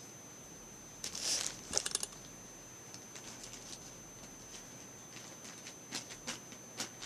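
Hands kneading and squeezing kinetic sand to soften it: a louder rustle about a second in, a quick run of crackles just after, then scattered small crackles and rustles.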